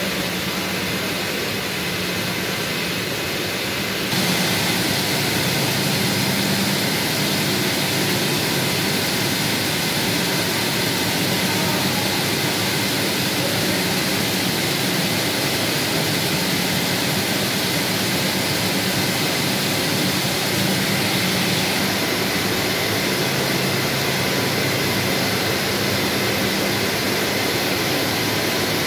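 Yitai YTC-S 192 single yarn covering machine running, its rows of high-speed spindles giving a steady, dense mechanical whir with a faint hum, a little louder from about four seconds in.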